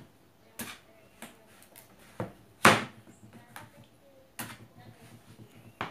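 A large kitchen knife chopping through pumpkin and striking the tabletop: a run of about seven sharp chops at uneven spacing, the loudest a little under three seconds in.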